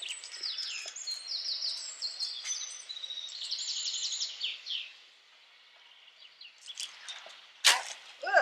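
Songbirds singing: quick runs of short, high, falling chirps for the first half, then fading. Near the end comes a single sharp click, the loudest sound.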